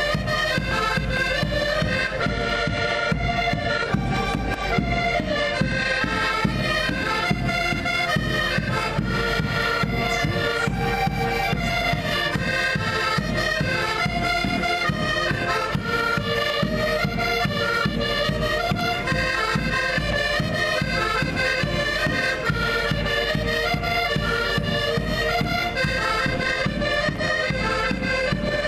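Four accordions playing a folk tune together, with a bass drum keeping a steady beat underneath.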